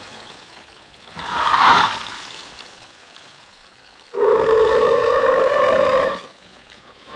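Alligator roar sound effects. About a second in, a short breathy roar swells and fades. Past the middle comes a long, steady, pitched roar of about two seconds that starts and stops abruptly.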